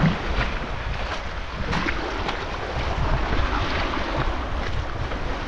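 Wind rumbling on the microphone over a steady hiss of small waves washing on a pebble shore.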